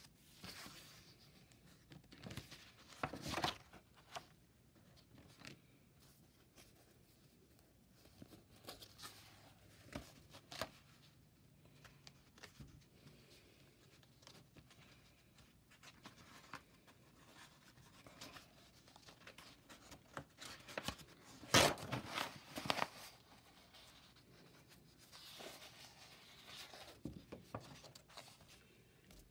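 Sketchbook paper rustling and being handled in a quiet room: scattered soft rustles and light taps, with a louder cluster of rustling about three seconds in and another past twenty-one seconds in.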